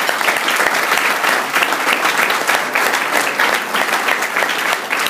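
Audience applauding: a loud round of many hands clapping, easing off slightly near the end.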